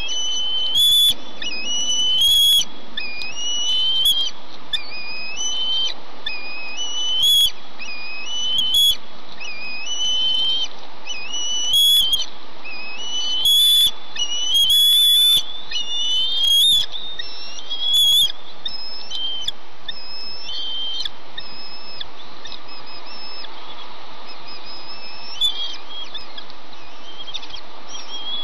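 Bald eaglets giving repeated high, thin whistling calls, each sliding upward, every second or two. These are food-begging calls at the adult eating beside them. The calls thin out in the last third, over a steady background hiss.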